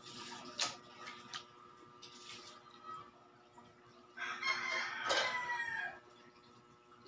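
A rooster crowing once, starting about four seconds in and lasting nearly two seconds, its pitch falling at the end. A few sharp clicks come before it, fitting a spoon on a plate.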